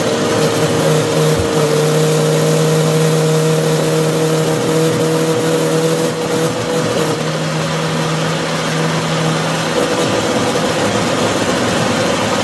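Countertop blender motor running steadily, churning a thick yogurt-and-berry smoothie in a full jar. A lower hum joins under the motor's steady whine about a second in and drops away shortly before the end.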